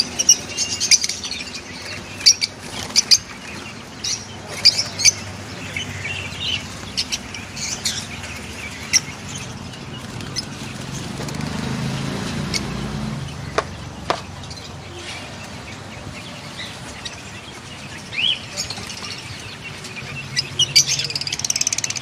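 A flock of caged African lovebirds, mostly Fischer's lovebirds, giving short, sharp, high chirps in scattered bursts, with a thicker flurry of calls near the end.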